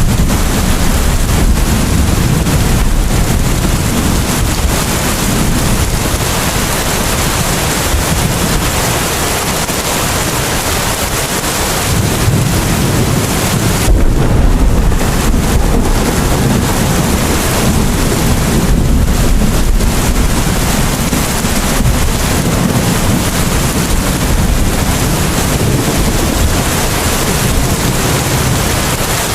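Steady rain, a dense even hiss with a low rumble underneath.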